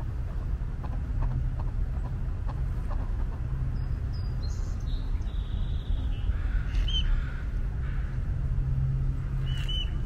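Several short bird calls from about four seconds in, over a steady low rumble.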